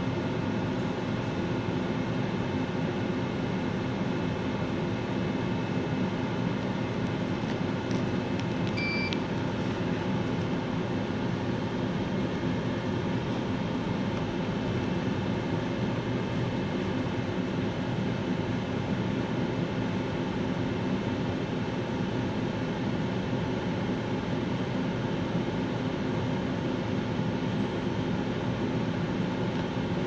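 CEM Discover-S microwave digestion system running during a heating hold at about 150 °C, a steady, even fan-like hum. A single short, high beep sounds about nine seconds in.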